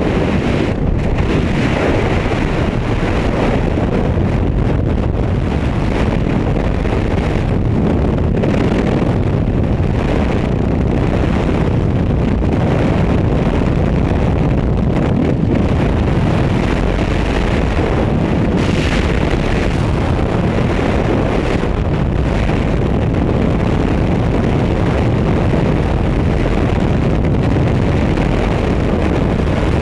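Steady, loud rush of freefall wind buffeting a body-mounted camera's microphone, from falling through the air at high speed.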